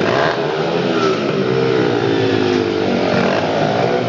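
Honda CRF dirt bike's single-cylinder four-stroke engine revving, its pitch rising and falling repeatedly.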